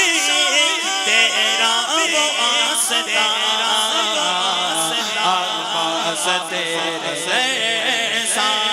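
A man's voice singing an Urdu manqabat, a devotional praise poem, into a microphone, unaccompanied, in long ornamented lines that waver and bend in pitch. A steady low held note sounds underneath from about halfway through.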